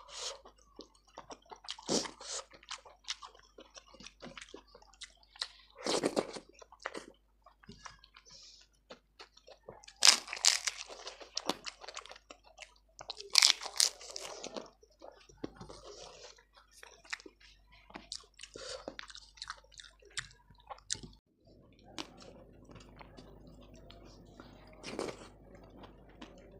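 Close-miked eating: loud crackling crunches as crisp food is bitten, about four bursts in the first fifteen seconds, with softer wet chewing between them. Near the end the chewing is quieter over a faint steady hum.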